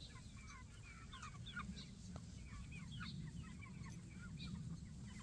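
A flock of meat chickens calling: many short, overlapping chirps and soft clucks, over a steady low rumble.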